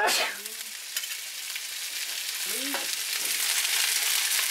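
Vegetables sizzling and spitting in hot oil in a wok as broccoli and carrots are dropped in, the sizzle growing louder toward the end.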